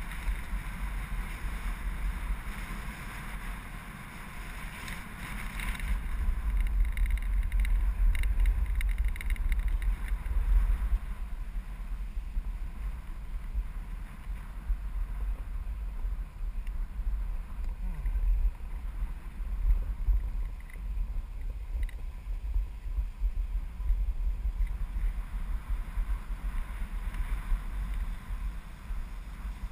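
Snowboard sliding and carving over packed snow, a steady hiss that is strongest for the first ten seconds or so, under a constant low rumble of wind on the board-mounted camera's microphone.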